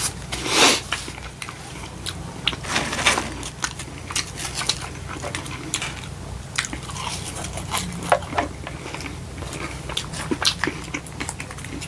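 A person biting and chewing food close to the microphone: a run of wet chews and sharp crisp crunches, with a louder bite about half a second in and another about three seconds in.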